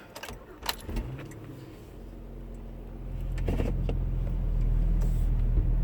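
A 2010 Acura MDX's 3.7-litre V6 running, heard from inside the cabin, getting steadily louder from about two seconds in as the SUV pulls away. A few sharp clicks come in the first second.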